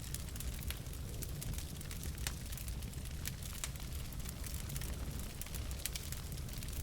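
Wood fire burning in a fireplace: a steady low rumble of flame with irregular sharp crackles and pops from the burning logs, one louder pop about two seconds in.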